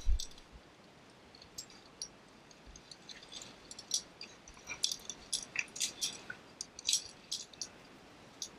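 Metal via ferrata carabiners on climbing lanyards clinking against each other and the steel safety cable: many short, bright clinks at irregular intervals, a few per second. A dull bump right at the start.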